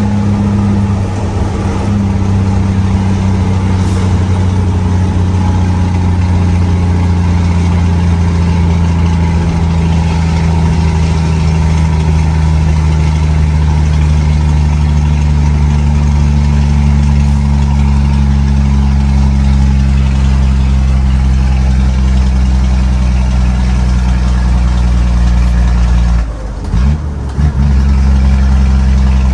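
Scania 124's straight-piped diesel straight-six running steadily under load at road speed, heard from inside the cab. Near the end the sound drops away twice, briefly, as in a gear change, then picks up again.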